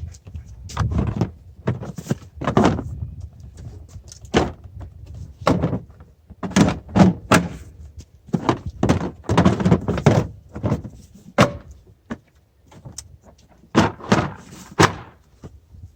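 Hard plastic Milwaukee Packout cases being handled and set onto mounting cleats: a long run of irregular clunks and knocks, with a short lull about twelve seconds in.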